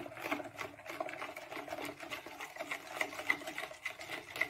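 A metal spoon stirring a milk, egg and sugar mixture briskly in a plastic bowl, knocking and scraping against the bowl's side in a steady rhythm of about four strokes a second.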